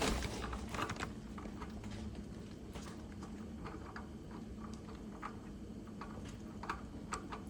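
Faint, irregular light clicks and taps of hand work as a new oil filter is fitted back onto its mount by hand, over a faint steady low hum.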